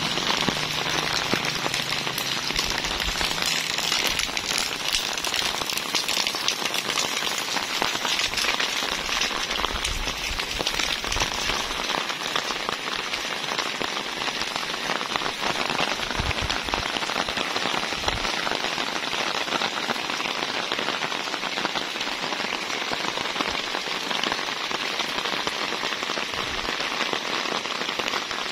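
Steady rain falling on the ground and vegetation, an even hiss made up of dense, fine drop impacts.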